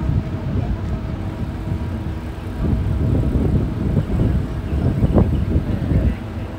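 Wind buffeting the microphone as a low, uneven rumble over a faint steady machinery hum on a car ferry's deck.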